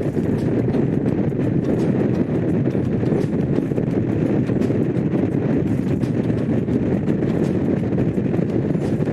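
Honda CX500's V-twin engine running steadily while the motorcycle is ridden, with wind noise on the microphone.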